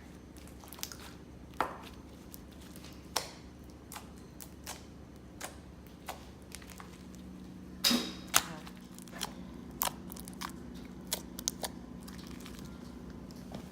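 Glitter-glue slime being handled and squished, giving off scattered sharp clicks and pops at irregular intervals, the strongest a pair about eight seconds in.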